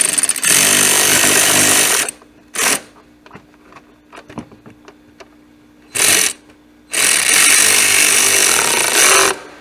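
Power driver running screws into the mounting of a blower motor resistor: a two-second run, a short blip, another short burst, then a longer run of about two seconds near the end.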